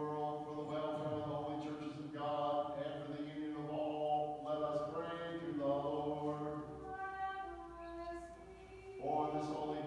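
Sung chanting of an Orthodox litany, with held, pitched vocal lines. The singing thins to one quieter voice about seven seconds in and comes back fuller near the end.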